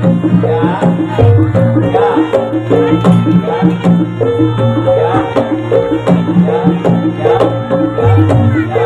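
Javanese gamelan music of the kind that accompanies kuda lumping: hand drums and bronze metallophones playing a busy, repeating rhythmic pattern.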